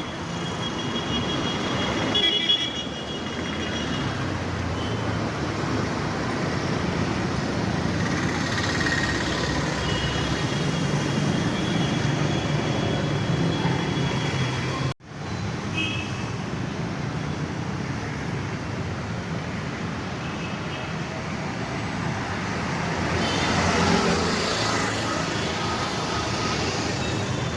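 Road traffic: a steady rumble of engines and tyres, with high, steady horn tones near the start and again for several seconds around the middle.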